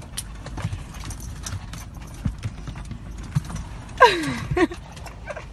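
A Yorkshire terrier scrambling about, its nails clicking and tapping irregularly on hard car-interior surfaces. About four seconds in it gives a loud whining cry, under a second long, that falls steadily in pitch.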